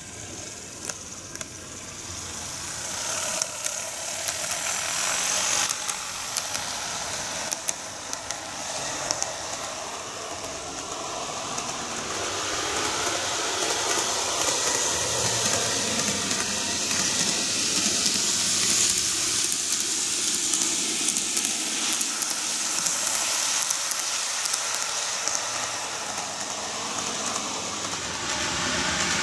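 N gauge model train (Greenmax Kintetsu 12410 series) running on TOMIX superelevated curved track: a steady rushing hiss of wheels on rail with a few sharp clicks early on, growing louder over the first dozen seconds and then holding.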